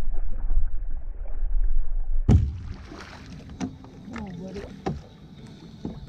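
Wind rumbling on the microphone while a bass is fought alongside a small kayak; a little over two seconds in, a sharp knock, then scattered clicks and knocks of handling and gear against the kayak.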